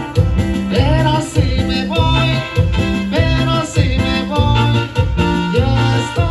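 Live band playing an instrumental passage of a Latin dance song, with a trumpet carrying the melody over a bass line that pulses about twice a second.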